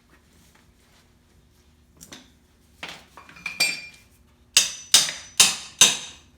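Metal tools striking metal: a few light clinks, then four sharp ringing metal-on-metal strikes in quick succession, about half a second apart, during work on the YZ125's stuck, stripped nut.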